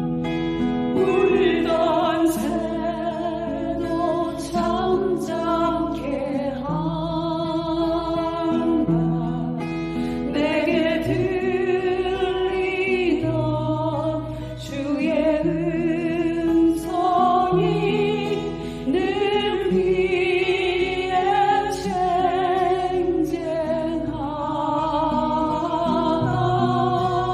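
A Christian praise song: a sung melody with vibrato over instrumental accompaniment with sustained bass notes.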